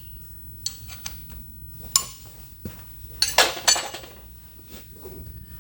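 A spanner clinking on steel as the lock nuts on a shaper's ram gib adjusters are nipped up. A few sharp metallic clinks, with a louder cluster of clinks a little past halfway.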